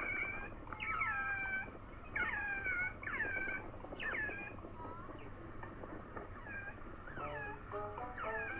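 A series of short, high animal calls, each falling in pitch, about one a second, fading after about five seconds, with a few stepped musical notes near the end.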